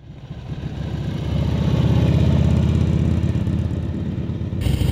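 1969 Harley-Davidson XLCH Sportster's air-cooled V-twin running as the bike is ridden along the street, fading in and growing louder over the first two seconds. The sound changes abruptly near the end.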